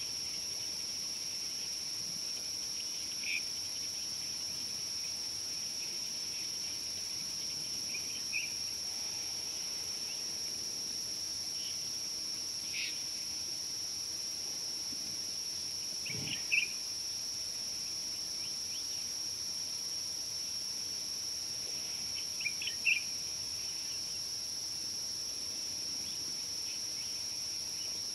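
Steady, high-pitched drone of insects in the bush, with short bird chirps every few seconds and a single dull low thud about halfway through.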